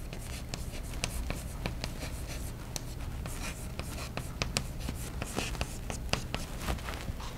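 Chalk writing on a blackboard: a run of short, irregular taps and scratches as letters are chalked, over a steady low hum.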